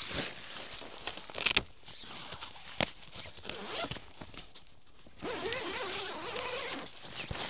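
Footsteps and rustling in dry leaves, then the zipper of a nylon tent door being pulled open, a ragged buzz lasting about two seconds near the end.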